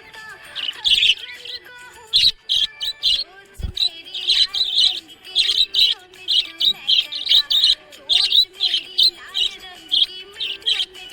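Budgerigars chirping and chattering: a fast run of short, high chirps over a softer, running warble.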